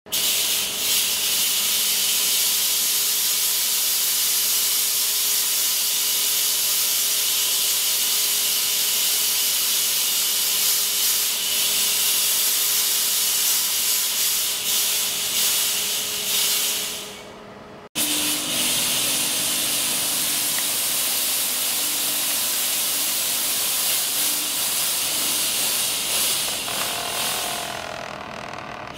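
1500W RGB LED fog machine blasting a jet of fog, a loud steady hiss with a faint steady hum under it. The hiss dies away after about seventeen seconds, starts again a second later, and tails off near the end.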